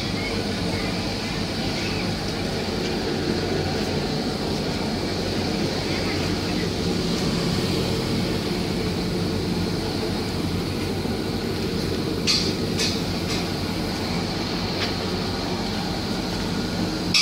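Steady bubbling and splashing of aerated water churning in a tarpaulin-lined holding tank, over a low steady hum. A few short ticks sound about twelve seconds in.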